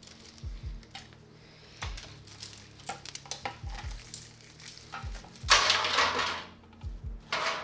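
Hands handling computer parts and tools: light clicks, knocks and soft thumps of small hard objects, with a loud scraping rustle lasting about a second, about five and a half seconds in.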